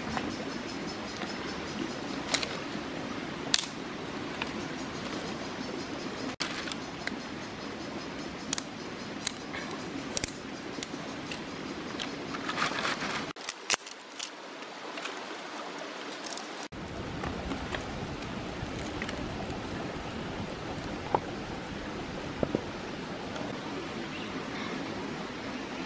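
Shallow stream running steadily over rocks, with scattered sharp clicks and knocks of stones and sticks being handled and set down.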